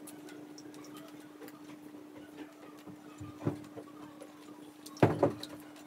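Close-miked chewing and wet mouth clicks of a man eating roast chicken by hand, over a steady hum. Two louder knocks come about three and a half and five seconds in, the second the loudest.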